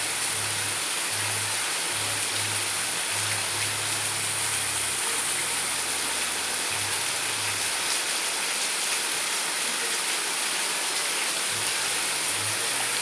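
Heavy rain falling steadily, an even hiss of water with no break.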